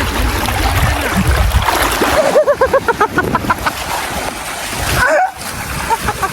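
A dog barking in a quick run of short, high yaps about midway, over a low rumbling noise.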